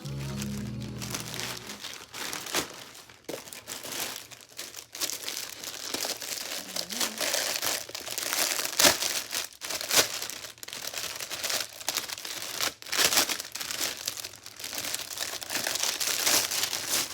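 Packaging being handled and unwrapped: continuous crinkling and crackling with many sharp snaps and some tearing.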